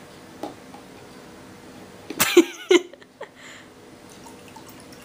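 A brief vocal outburst in two quick parts about two seconds in, with a wavering pitch, over a quiet room.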